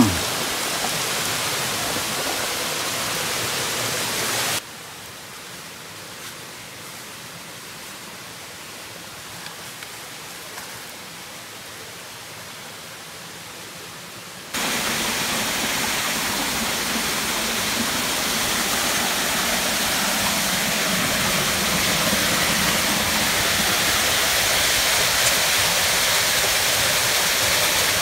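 Steady rushing water of a small forest waterfall. It drops suddenly to a quieter level a few seconds in and comes back up just past the halfway point.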